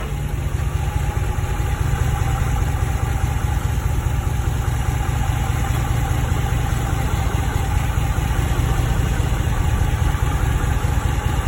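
2014 Ram 1500 pickup's engine idling steadily as the truck creeps slowly in reverse.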